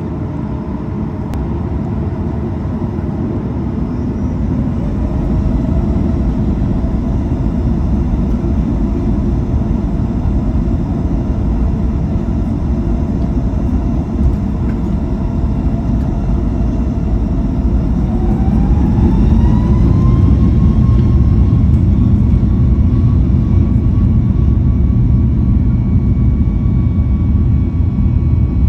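Boeing 737 MAX 8's CFM LEAP-1B jet engines spooling up to takeoff thrust: a whine rises slowly, then climbs sharply about two-thirds of the way in and holds high, over a deep rumble that grows louder.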